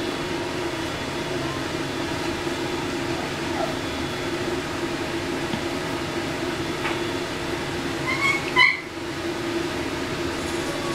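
A six-week-old puppy gives a short, high-pitched yelp about eight seconds in, after a faint short whine a few seconds earlier, over a steady low hum.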